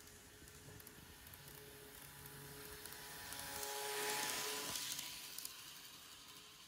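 KATO N-gauge model of a JR Shikoku 2000-series train running past close by: the rolling rush of its wheels on the track, with a faint motor whine, swells to its loudest about four seconds in as it passes, then fades.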